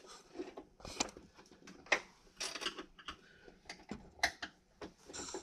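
Faint, scattered clicks and light taps at an uneven pace.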